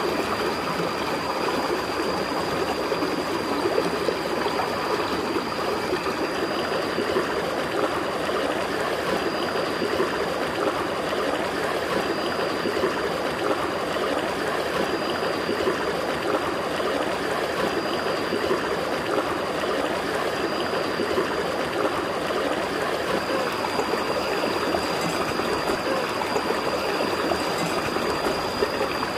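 Shallow rocky stream running and trickling over stones in a steady, unbroken rush, with a thin, steady high whine above it.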